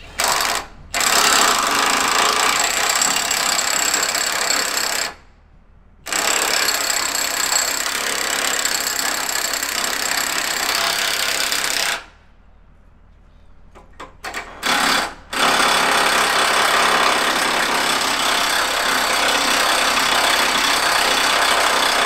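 Impact wrench hammering on large bolts at a fairground ride's hub, in long runs of several seconds broken by short pauses and a few brief blips.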